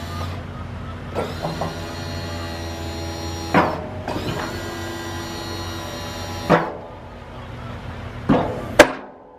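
Boss HTX V-plow's electric-hydraulic pump running in two runs of about two and a half seconds each as the wings move, each run ending sharply. A steady low engine hum of the idling truck runs underneath, and two sharp clicks come near the end.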